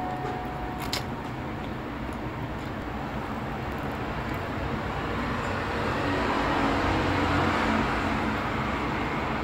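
Steady low rumbling background noise that swells and eases again between about five and eight seconds in, with one sharp click about a second in.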